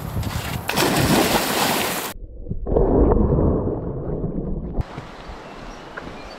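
A person plunging into water, heard from a microphone that goes under with them: a loud rushing splash, then about two and a half seconds of muffled underwater gurgling and bubbling. About three-quarters of the way through, the sound turns clear again as it breaks the surface.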